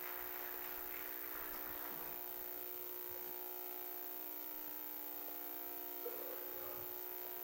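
Steady electrical buzz made of several fixed tones, with faint noise fading out over the first two seconds and a brief faint sound about six seconds in.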